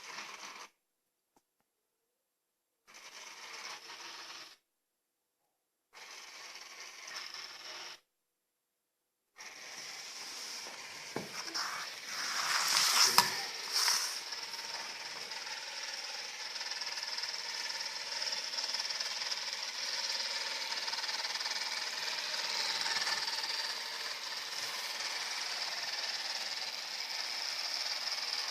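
Robot vacuum cleaner running: a steady high motor and brush whir with mechanical clicking and rattling as it drives over and drags electrical cables, loudest in a clatter a few seconds after the sound becomes continuous. The first few seconds come in three short bursts cut off by dead silence.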